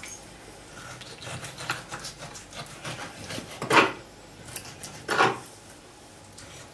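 Kitchen knife slicing raw beef liver on a wooden cutting board: soft cutting and rubbing with small clicks, and two louder knocks of the blade against the board about a second and a half apart in the second half.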